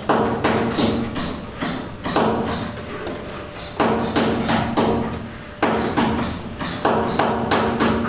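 Hammer blows with a ringing tone, struck in quick runs of three to five, each run about a second and a half to two seconds after the last.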